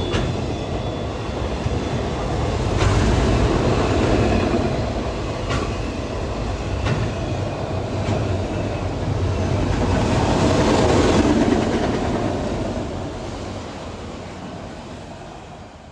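Loaded freight train of autorack cars rolling past, a steady rumble with occasional sharp wheel clacks over rail joints. A high wheel squeal dies away right at the start, and the rumble fades over the last few seconds as the end of the train goes by.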